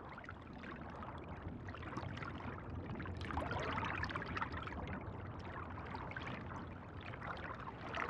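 Underwater ambience: a soft, steady watery hiss with a fine crackle through it.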